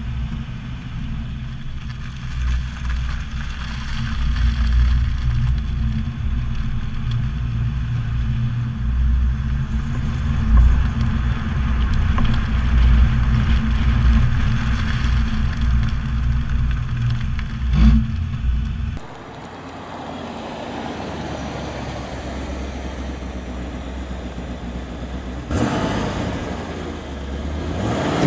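1986 Chevrolet Corvette's 5.7-litre V8 running as the car rolls off and drives slowly, heard from close by the front wheel with heavy low rumble and wind. After a cut it runs steadily at idle, heard from beside the car, and grows suddenly louder for a moment about three-quarters of the way through.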